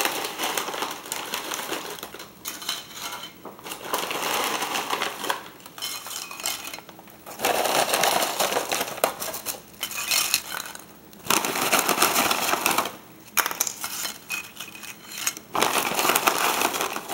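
Pita chips shaken out of a crinkly snack bag onto a plate: the bag rustling and hard chips clattering onto the plate in about eight bursts, with short pauses between them.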